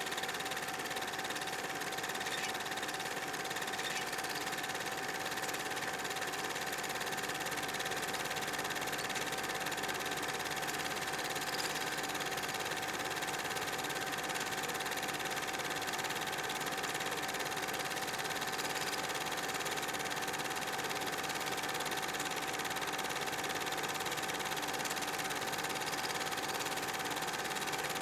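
Film projector running: a steady mechanical whirr with a constant tone in it, unchanging.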